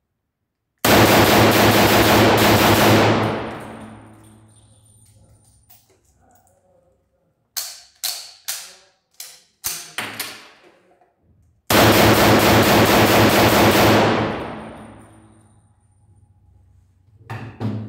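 Mauser C-96 pistol fired in two rapid strings of shots, each lasting about two and a half seconds, with the echo of an indoor range dying away after each. Between the strings, several sharp metallic clacks as the pistol is worked by hand.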